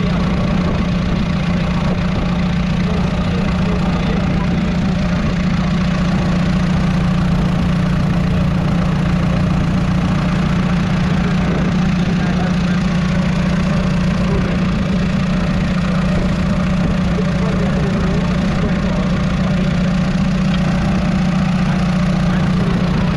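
1949 Allis-Chalmers U tractor's 5.2-litre four-cylinder petrol engine idling steadily.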